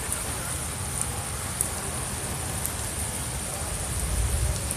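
Steady hiss of rain and flowing floodwater, with a few faint ticks, and wind rumbling on the phone's microphone that grows stronger near the end.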